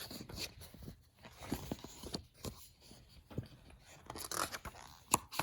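Faint rustling and scattered clicks of a paper picture book being handled, with one sharper click about five seconds in.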